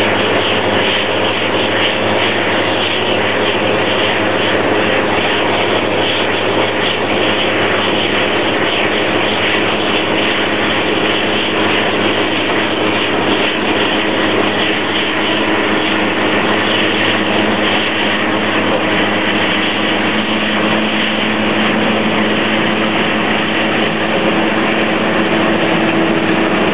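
Komatsu D375A-5 crawler bulldozer's six-cylinder diesel engine running steadily under load as it pushes earth, a loud continuous drone that grows slightly louder near the end.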